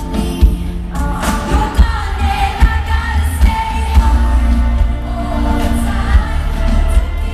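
Live electronic pop song over a concert PA: a woman singing into a microphone over deep bass and a steady beat.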